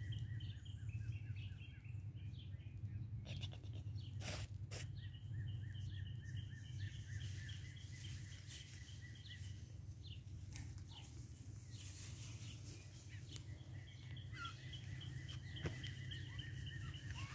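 Repeated high chirping trills, each a long run of evenly spaced chirps at one pitch, over a steady low outdoor rumble. Two sharp clicks about four seconds in.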